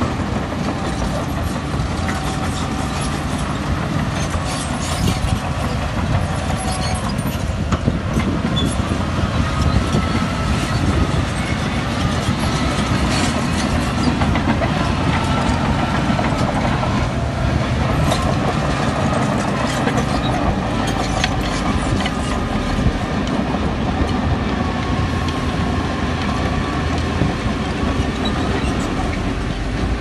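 Bulldozer's diesel engine running steadily, with scattered clanks from its steel crawler tracks and a squeal that rises and falls now and then.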